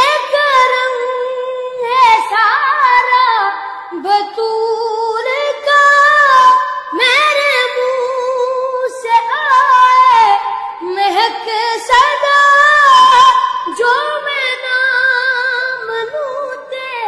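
A boy singing a kalam (devotional poem) solo and unaccompanied, in a high voice, with long held notes that waver and turn, broken by short breaths.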